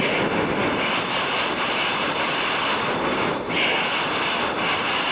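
Old analog TV or VHS static: a steady, loud hiss of white noise with brief slight dips about three and a half and four and a half seconds in.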